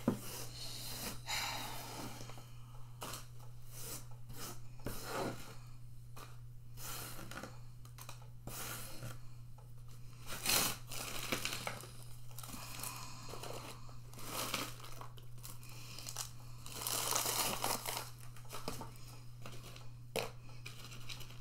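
Wrapper crinkling and tearing, with the dry crackle and snap of a freeze-dried vanilla ice cream sandwich being broken apart by hand onto a plate, in irregular bursts of rustling and crunching.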